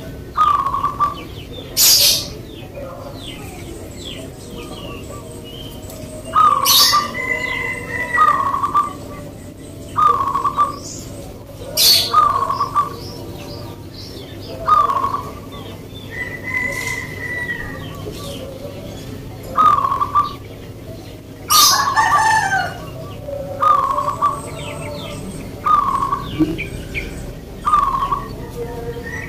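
Zebra dove (perkutut) singing in its cage: short cooing notes repeated every second or two, in the four-beat rhythm fanciers call ngepat. Other birds chirp sharply in the background a few times.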